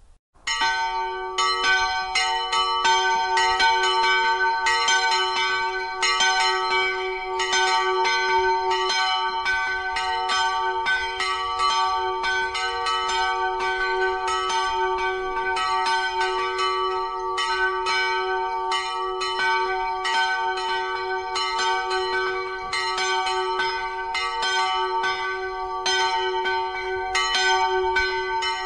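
Church bells pealing, several bells ringing together in a steady stream of strikes that starts about half a second in.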